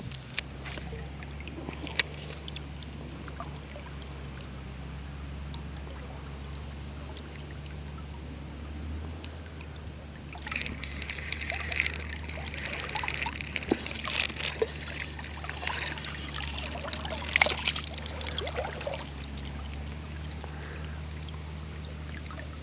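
Steady rush of river water with a single sharp click about two seconds in, then irregular splashing from about halfway through to near the end, the sound of a small hooked trout thrashing at the surface as it is brought in.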